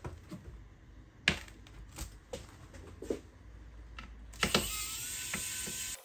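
Aluminium laptop being handled on a table: several separate sharp knocks and taps as the lid is shut and the machine is turned over onto its lid. Over the last second and a half a steady hiss with a faint steady tone comes in.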